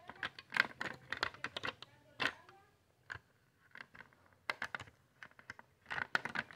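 Small plastic items clicking and clattering against a clear plastic organizer as they are handled and set in place, in quick clusters of taps with short pauses between.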